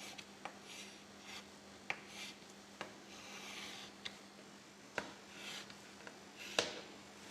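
Handwriting the lesson title: short scratchy strokes with sharp taps as the writing tip meets the surface, loudest about five seconds in and again near six and a half seconds. A faint steady hum lies underneath.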